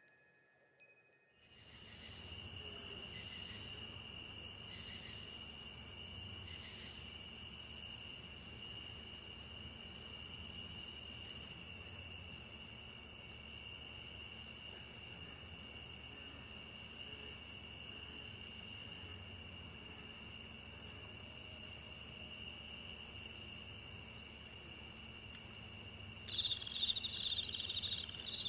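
Rainforest insect chorus: a steady high cricket-like trill with a higher buzz pulsing on and off every second or two. A louder chirping insect joins near the end. Fading wind chime tones die away in the first second or so.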